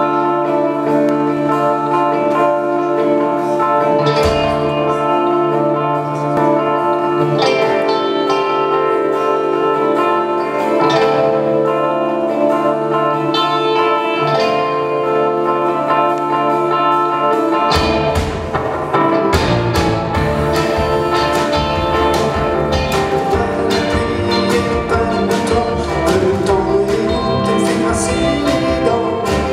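Live band playing an instrumental intro on electric guitars. About two-thirds of the way in, bass guitar and drums join, filling out the low end with a steady beat.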